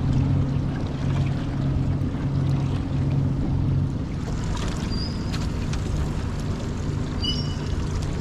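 A small boat's motor running steadily with a low hum, with wind noise on the microphone. A couple of brief faint high chirps come in about five and seven seconds in.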